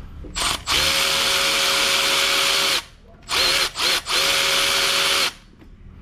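Power tool driver motor run in bursts: a brief blip, a steady run of about two seconds, two quick blips, then another run of about a second. It is backing out exhaust header bolts.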